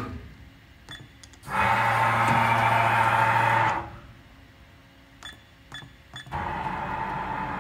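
Haas vertical machining center's axis servo motors and ball screws driving the machine in separate moves with a steady whine, one about a second and a half in lasting two seconds and another starting near the end. Between the moves there are a few sharp clicks.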